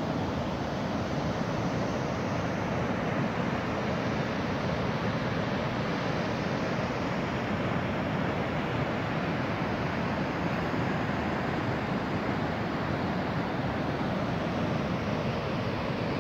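Steady rushing noise, even throughout, with no distinct sounds standing out of it.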